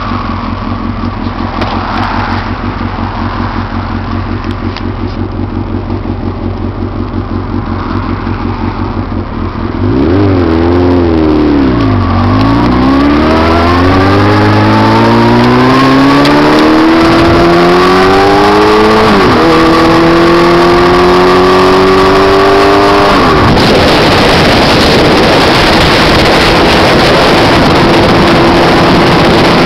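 Motorcycle engine running steadily at low revs. About ten seconds in it gets louder and climbs in pitch through several gear changes as the bike accelerates. From about two-thirds of the way through, wind rushing over the microphone covers it, with a steady engine note beneath.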